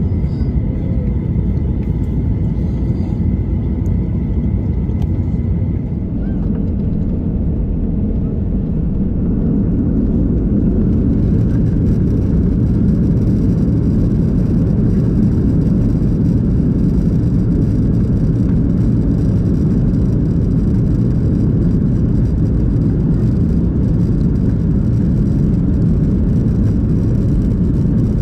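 Boeing 737-800 engines heard inside the cabin from a window seat: a steady jet rumble that grows louder about ten seconds in, with a rising hiss, as the engines spool up for the takeoff roll.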